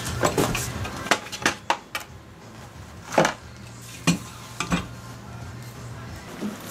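Hard clicks and knocks of a floor shifter assembly being handled, turned over and set down on a newspaper-covered workbench, with a faint steady low hum underneath.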